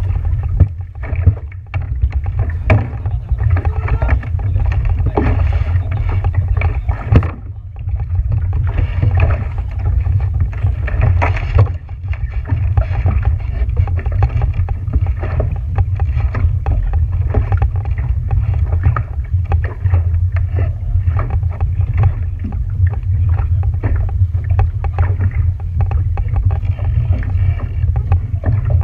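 A boat running over open water, with a steady low rumble of wind on the microphone and frequent irregular knocks and splashes.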